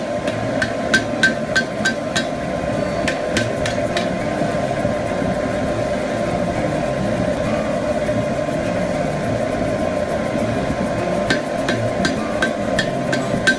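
Hand hammer blows on a glowing steel spear socket against the anvil, about three a second, each with a short metallic ring. The hammering stops for several seconds in the middle and resumes near the end, over a steady background hum.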